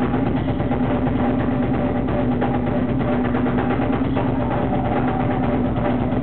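Drum solo on a rock drum kit with two bass drums: a fast, unbroken stream of strikes, dominated by rapid kick-drum beats, with a steady low tone underneath.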